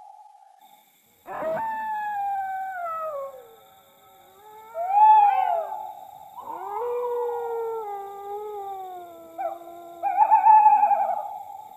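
Eerie howling: several long wavering wails that slide down in pitch, with a shorter one rising and falling about five seconds in.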